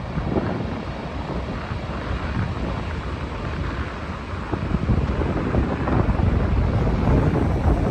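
Wind buffeting the microphone over the wash of ocean surf, gusting louder a little past halfway.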